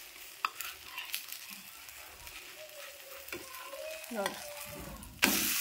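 Wheat-flour dosa frying on a hot oiled non-stick tawa, a low sizzle with a few light scrapes as a spatula is worked under it. Near the end it is flipped, and the sizzle jumps suddenly louder as the raw side lands on the hot oil.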